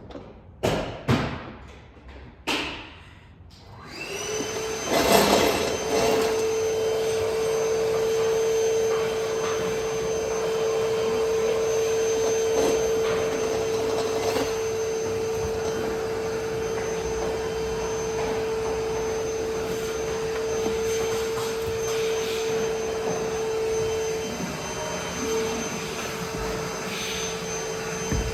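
A few light knocks, then about four seconds in an electric heat gun switches on and runs steadily, its fan noise carrying a constant hum and a high whine.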